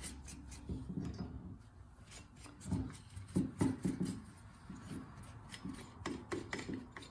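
A rag rubbing and wiping over the bare metal engine and clutch of a Homelite XL chainsaw in irregular strokes, wiping off excess WD-40, with a few light clicks of handling near the end.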